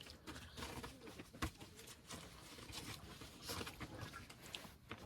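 A dog moving about on bedding: soft rustling with scattered light taps and patters, and one sharper click about one and a half seconds in.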